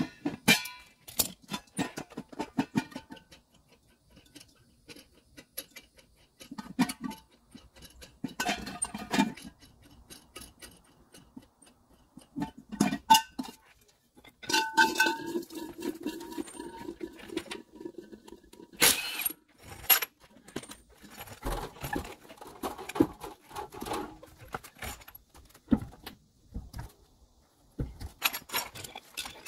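Chrome lug nut covers on a motorhome's steel-and-aluminium wheel clicking and clinking as they are unscrewed and handled. About halfway through, the chrome hub cover clanks and rings briefly as it is pulled off, and scattered metal clinks follow.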